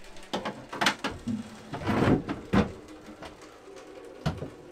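Irregular light knocks and clicks, a dozen or so, with the loudest couple of knocks around two seconds in.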